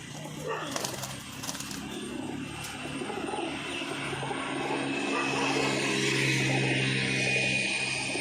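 Domestic pigeons cooing in a loft, with a few sharp clicks or flutters about a second in. A steady low hum grows louder through the second half.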